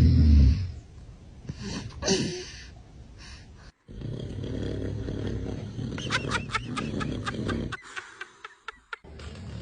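A man snoring loudly, with the loudest snore, a deep rumble, right at the start. Shorter snorts and breathing sounds follow, broken by sudden cuts.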